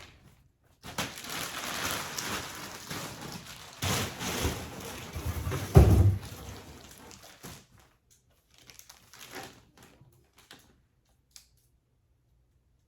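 Plastic packaging crinkling and rustling as vacuum-compressed pillows are unwrapped, with a heavy thump about six seconds in. After that only a few faint rustles.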